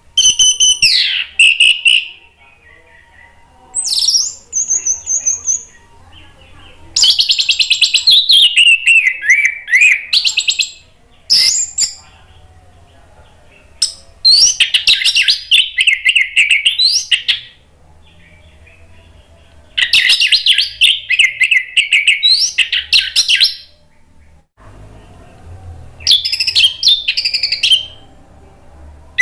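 Orange-headed thrush singing: a series of loud song phrases, each a quick string of high, sliding whistled notes lasting one to four seconds, with pauses of one to three seconds between them.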